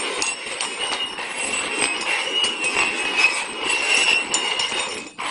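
Cups being slid and shuffled across a tabletop in a shell game: a continuous scraping rattle with many small clicks, which stops abruptly near the end.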